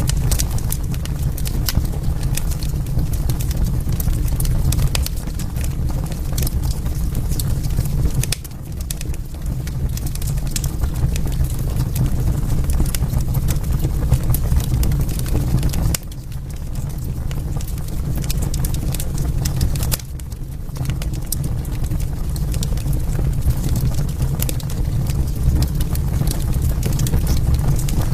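Wood fire crackling: a dense run of sharp pops and snaps over a steady low rumble of the flames. The level drops abruptly a few times and builds back up.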